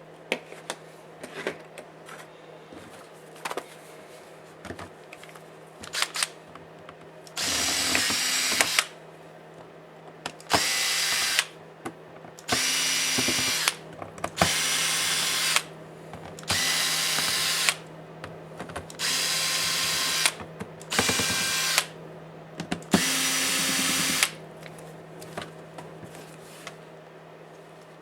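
Small power screwdriver run in about eight short bursts of roughly a second each, every couple of seconds, backing out laptop case screws, with light clicks of handling in between.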